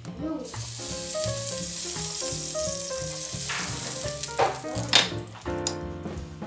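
Waffle batter sizzling on the hot plates of an electric waffle maker, starting suddenly about half a second in and fading out near the end. Two sharp clicks come toward the end, over background music.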